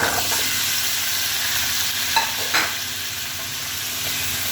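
Cut potato and cauliflower pieces sizzling in hot refined oil in a kadai, the hiss loudest as they go in, with two short clinks a little past halfway.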